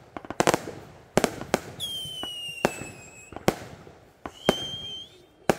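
New Year's fireworks and firecrackers going off in scattered sharp bangs. A high whistle falls slightly in pitch about two seconds in, and a second, steady whistle comes near the end.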